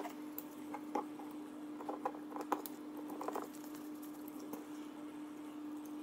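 Light clicks and taps of small screws, a hex screwdriver and carbon-fibre frame plates being handled while screwing a front brace onto a drone motor, mostly in the first three and a half seconds, over a faint steady hum.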